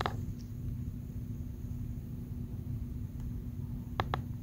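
Hurricane wind blowing: a steady low rumble with a faint steady hum, and a few light clicks just after the start and about four seconds in.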